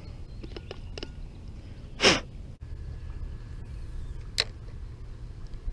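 Wind rumbling on the microphone, with one short, sharp noise about two seconds in and a fainter click about two seconds later.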